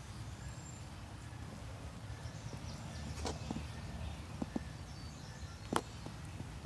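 Quiet outdoor ambience: a low steady rumble with a few faint clicks, a little after three seconds in, around four and a half seconds, and near the end.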